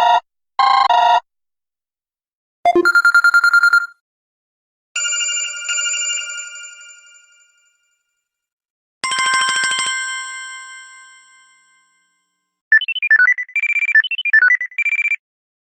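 A series of short stock electronic ringtone and alert tones from a Samsung Galaxy S Plus (GT-i9001), played one after another with silence between them: short beeps, two chimes that ring on and fade away, and near the end a quick, high, warbling tune.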